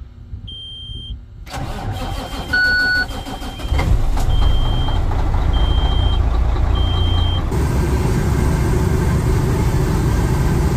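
Cold start of a Kenworth truck's diesel engine: a dashboard warning chime beeps at a steady pace, the starter cranks for about two seconds, and the engine catches and runs loudly. Near the end the sound changes to the truck running at speed on the highway.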